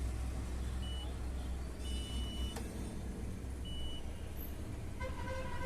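Digital multimeter's continuity buzzer giving short high beeps, three times, the longest about two seconds in ending with a click, as the probes are put on a D2499 horizontal output transistor; the beeping points to a shorted transistor. A low steady hum runs underneath.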